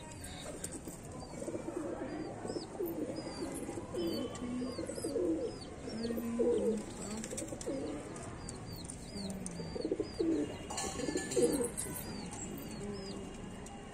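Domestic pigeons cooing repeatedly. Behind them a small bird keeps up short, high chirps, about two a second.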